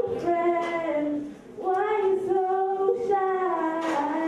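A schoolgirl singing solo without accompaniment, holding long notes, with a brief pause about a second and a half in.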